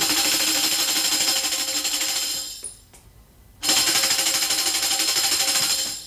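Tambourine shaken and beaten rapidly, its metal jingles ringing in a fast continuous patter. It stops for about a second midway, then starts again; in the game the fast beat is the cue to run and the stop the cue to freeze.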